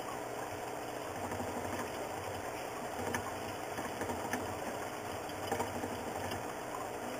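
Steady mechanical hum, like a small motor running, with a few faint clicks.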